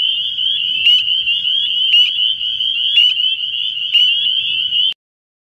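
Spring peepers calling: a dense chorus of high, rising peeps, with one louder peep about once a second from a calling male close by, cutting off suddenly near the end.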